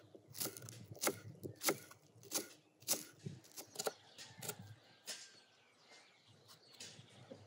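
Kitchen knife chopping green onions on a wooden cutting board: sharp, irregular knocks roughly every half second for about five seconds, then fewer and quieter.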